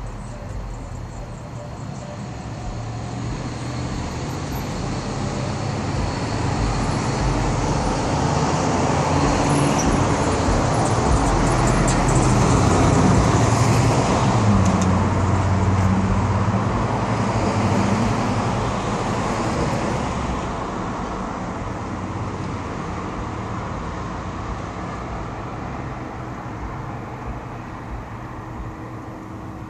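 Chevrolet Monte Carlo's V8 driving past with exhaust noise: the engine note builds over several seconds, is loudest about halfway through, then fades as the car pulls away.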